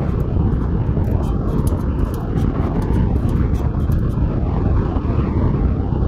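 Frequent light, sharp metallic clicks as a hand tooth setter is worked along a band saw blade's teeth, over a steady low rumble.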